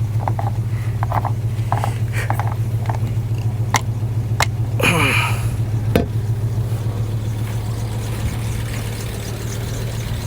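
Volvo 850 inline five-cylinder engine idling steadily, with the cooling fan running. A few sharp clicks and a brief squeak come in the middle. The engine is running rich, which the owner puts down to a dead coolant temperature sensor, and it has a vacuum leak.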